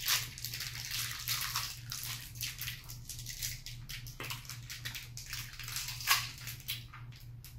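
Small crinkles and clicks of hard-candy wrappers being unwrapped by hand, mixed with wet mouth sounds of sucking on the candy, over a low steady hum.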